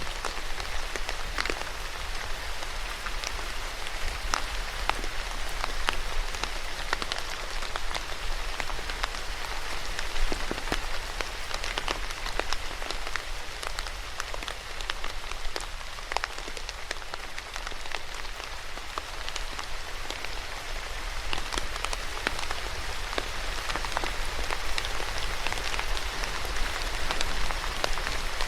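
Steady rain falling on a surface, a dense hiss full of many distinct drop ticks and patters.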